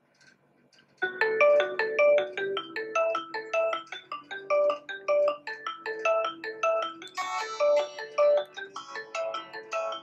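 Redmi Note 5 Pro's loudspeaker playing a ringtone, starting about a second in: a quick, repeating melody of short notes.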